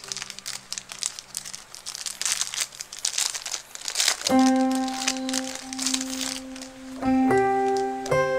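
Plastic packaging crinkling as hands unwrap a pad of patterned paper, for about four seconds before fading out. Piano background music comes in about four seconds in and carries on to the end.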